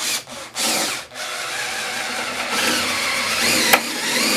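Power drill spinning a 72-inch flexible auger bit down through a wall cavity and its wooden fire stop. It starts and stops twice in the first second, then runs on with a whine that wavers up and down as the bit bores. There is a sharp knock about three-quarters of the way through.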